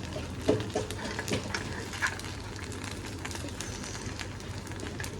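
Cooking in a pan: scattered clicks and taps of a utensil stirring over a steady sizzle.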